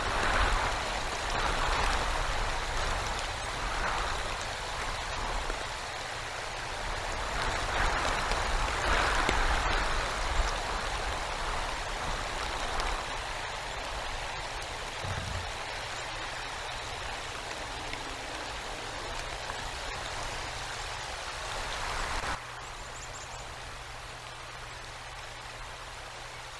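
Winter storm noise of wind and icy rain mixed with snow: a steady hiss with a low rumble that swells in gusts several times in the first half, then evens out and drops suddenly in level near the end.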